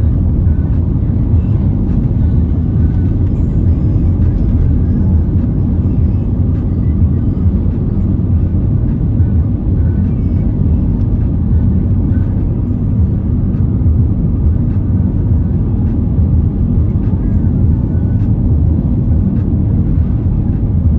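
Steady low rumble of a car driving along the road, tyre and engine noise heard from inside the cabin.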